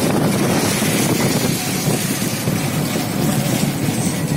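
Steady rumble of a vehicle driving along a road: engine and road noise, even throughout.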